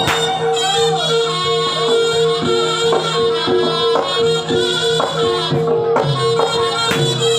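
Jaranan ensemble music: a reedy wind-instrument melody over a steady held tone, with repeated drum strokes.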